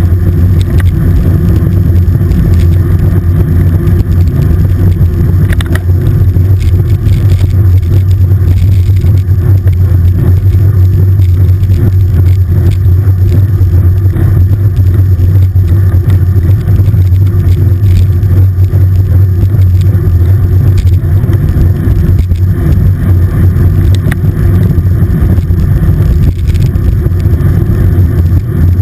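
Wind buffeting the microphone of a handlebar-mounted camera on a moving road bike: a loud, steady low rumble, with the rolling noise of the bike on rough asphalt underneath.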